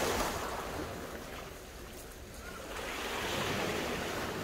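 Small waves breaking and washing up a shingle beach. One surge fades at the start, and another builds about three seconds in.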